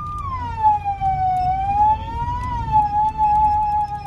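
Emergency vehicle's siren wailing, heard from inside the cab while running Code 3. Its single tone slides down, rises a little, then dips and holds, over the low rumble of the vehicle's engine and road noise.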